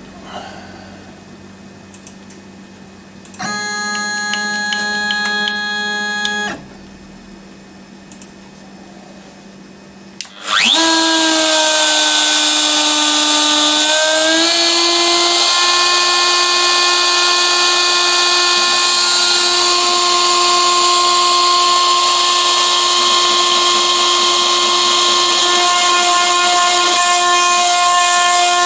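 A steady machine whine lasts about three seconds, starting a few seconds in. About ten seconds in, a DeWalt compact router on a CNC machine spins up with a rising whine, then runs at a steady, loud, high whine as it starts cutting the plate.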